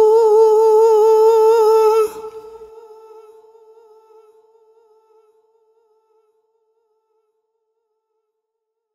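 A man's unaccompanied singing voice holding a high 'oh' with vibrato, cut off about two seconds in; its reverb tail dies away over the next few seconds.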